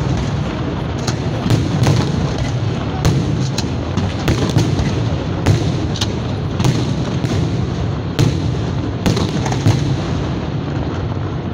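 Fireworks display: aerial shells bursting in quick succession, sharp booms about one or two a second over a continuous low rumble and crackle.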